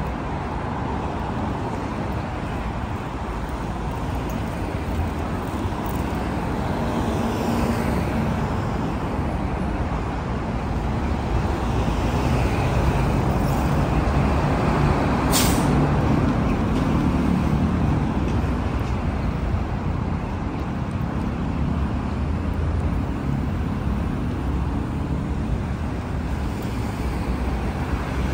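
City street traffic: cars and heavier vehicles passing with a steady rumble that grows louder through the middle, and one brief sharp hiss about fifteen seconds in.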